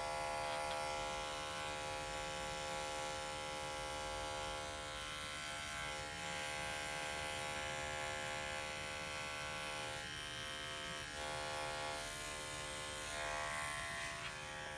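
Electric dog grooming clippers running with a steady buzzing hum as they trim the hair between a dog's paw pads.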